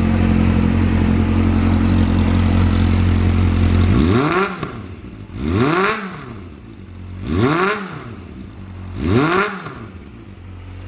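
Kawasaki ZRX400's water-cooled four-cylinder engine idling steadily through a Nojima full exhaust. About four seconds in, the throttle is blipped four times, roughly every second and a half, each rev rising and falling back.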